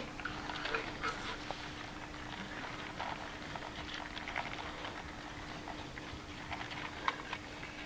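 Model railway train running on the layout: irregular light clicks and ticks of the wheels on the track over a steady low electric hum.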